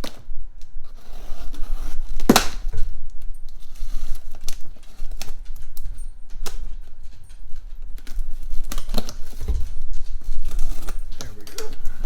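A cardboard shipping box being opened and its heavy packing paper handled: one loud, sharp noise about two seconds in, then scattered clicks, taps and paper rustles.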